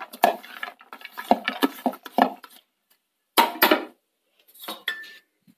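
Sliced jackfruit seeds sliding off a ceramic plate into an earthenware pot, a run of small knocks and clicks. Then two louder clatters of dishware being handled, the second with a short ring.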